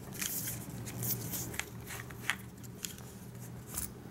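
Handling noise from a telescopic selfie pole and a small device on its mount: rustling with several sharp clicks and taps as they are taken apart and set down on a table.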